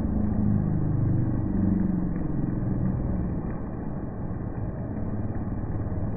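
A motor vehicle's engine passing on a wet road, loudest in the first three seconds and then fading, over the steady hiss of heavy rain.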